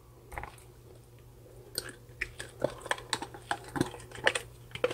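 Clear slime being squeezed out of a thin plastic cup, making irregular sticky clicks and crackles, several a second, from about two seconds in.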